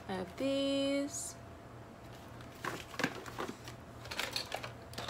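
Small household items being handled and rummaged in a plastic storage crate: scattered light clicks and rustles through the middle and latter part. Near the start, a short, steady hum, the loudest sound.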